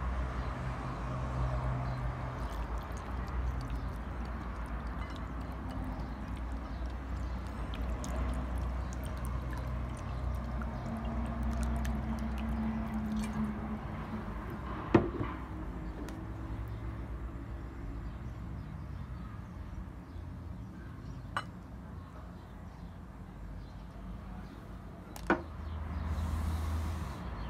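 Water pouring and sloshing into a glass bowl of sliced raw potatoes to soak them, with a few sharp knocks against the glass bowl.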